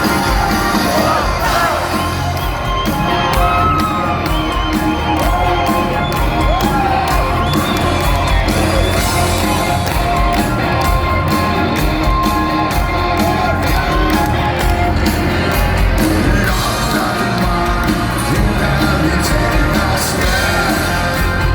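Rock band playing live, loud, with heavy bass and drums and a singer's voice gliding over it, recorded from within the audience in a large hall; the crowd whoops and shouts along.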